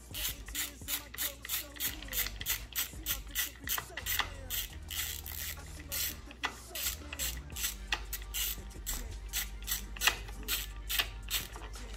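Ratcheting screwdriver clicking in quick, even strokes, about four clicks a second, as a Phillips screw is backed out of a motorcycle throttle housing.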